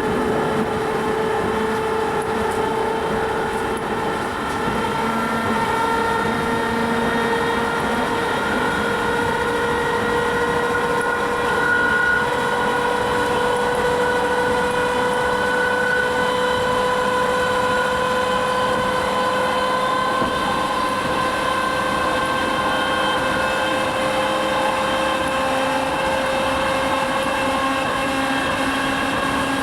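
Whine and running noise of a worn English Electric traction motor on a British Rail 2EPB electric multiple unit, heard on board, with a steady whine that slowly rises in pitch across the whole stretch.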